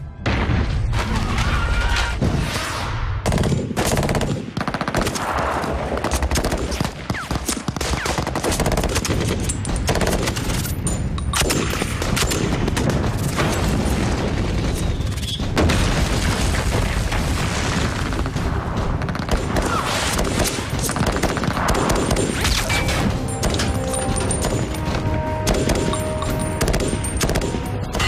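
Sustained gunfire from many automatic rifles and carbines, shots following one another densely and continuously in a firefight.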